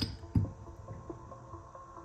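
Background music with a steady melodic line. A sharp click comes right at the start and a short low knock about a third of a second in.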